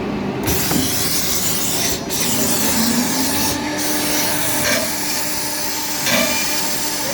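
Automatic horizontal CNC drilling machine boring into a workpiece: a loud rasping cut starts about half a second in, and the drill spindle's hum rises in pitch and then holds steady.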